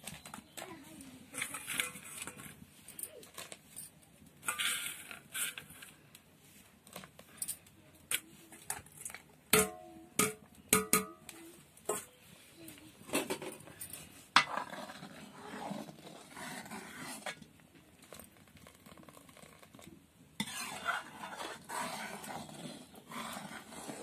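Metal clatter of a utensil knocking and scraping against a steel kadai: irregular clinks and scrapes, with a cluster of sharp strikes and brief metallic ringing about ten seconds in.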